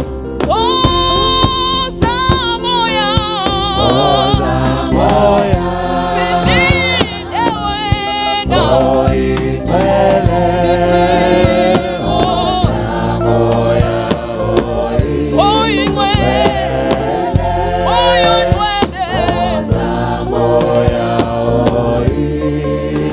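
Gospel music: singing with vibrato over a steady bass and keyboard-style chords.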